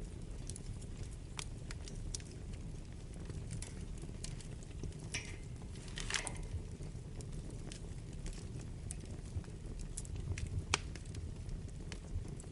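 Wood fire burning in a fireplace: a steady low rumble with scattered sharp crackles and pops throughout, and a brief hiss about six seconds in.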